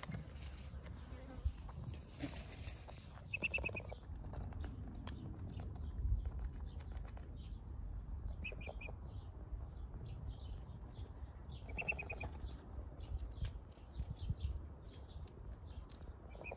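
Short high bird chirps, each about half a second long, heard a few times several seconds apart over a low rumble.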